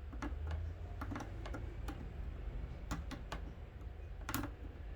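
Irregular light clicks and taps of small hard parts being handled during a fishing-rod reel seat repair, with the sharpest click near the end, over a low steady hum.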